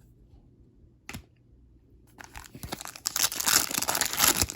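A foil trading-card pack wrapper being torn open, with crinkling that builds over about two seconds after a single click about a second in.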